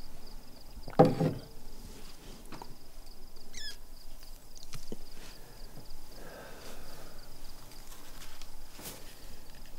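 Steady high-pitched cricket trill throughout. A single sharp knock about a second in, and a few faint clicks scattered after it.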